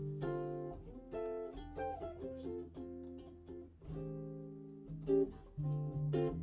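Acoustic guitar playing an improvised line of separately plucked notes and short chords.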